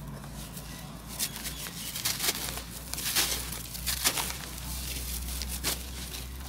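Dry clods of brown dirt being crushed and crumbled by gloved hands: gritty, irregular crunching and crackling, with loose grains pattering down, over a faint steady low hum.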